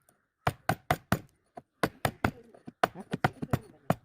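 Chisel being struck repeatedly into a wooden workpiece, cutting away wood for a 45° corner joint: about a dozen sharp blows in quick runs of three or four.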